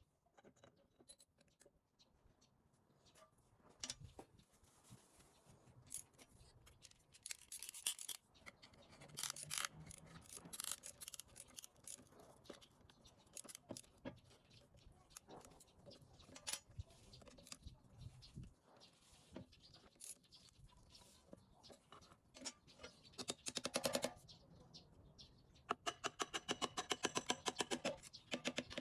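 Hand work on truck air-compressor parts: scattered clicks, light knocks and scrapes of metal parts and tools. Near the end comes a fast, even run of clicks lasting about three seconds.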